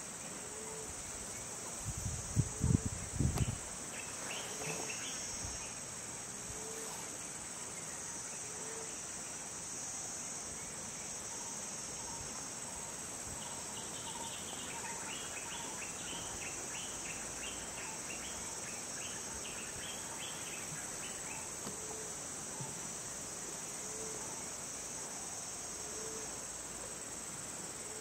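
Steady high-pitched drone of a forest insect chorus, with a short low call repeating every second or two and scattered chirps in the middle. A cluster of loud low thumps comes about two to three seconds in.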